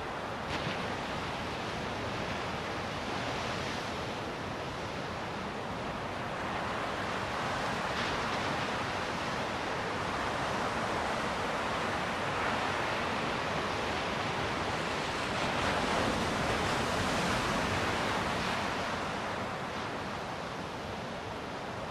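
Ocean surf washing onto a beach: a continuous rush of breaking waves that swells louder through the middle and eases near the end.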